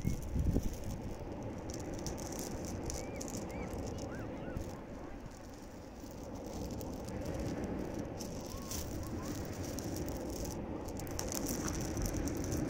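Sea waves washing onto a pebble beach, the surf's backwash dragging and rattling the small stones. The wash ebbs a little around the middle, then swells again.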